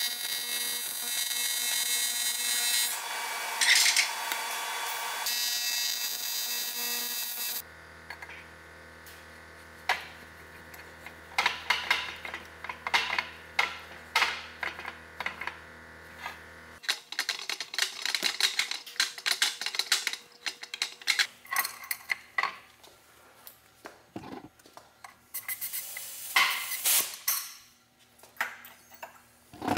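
AC TIG welding arc on an aluminum intercooler, a steady buzzing hiss that cuts off about eight seconds in. A low steady hum runs on for several seconds after. Scattered clicks and clinks of aluminum end caps and fittings follow as they are handled and screwed on by gloved hands.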